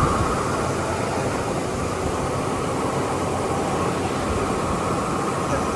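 Automatic corrugated box folder-gluer and stitcher machine running, giving a steady, dense mechanical noise with a faint steady tone above it.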